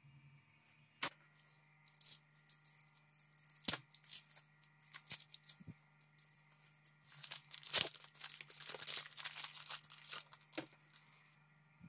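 Hands handling a coil of new electrical cable and its plug: scattered clicks and knocks, then a dense stretch of plastic packaging rustling, loudest about eight seconds in.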